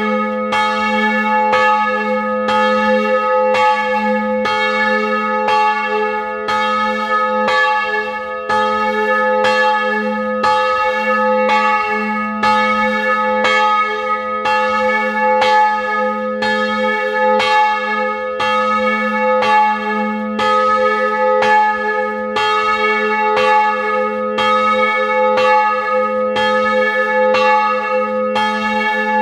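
A single bronze church bell with the strike note A-flat, cast in 2006 by Rudolf Perner, swing-ringing. The clapper strikes at an even pace, about once a second, and the bell's hum and overtones sustain between strokes.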